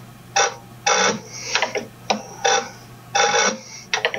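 American Bosch ADE-type diesel injector nozzle popping on a hand-lever pop tester: about seven short spray bursts, roughly two a second, one with each pump stroke, the nozzle chattering as it opens. It is opening at about 90 bar, a little low on opening pressure. A steady low hum runs underneath.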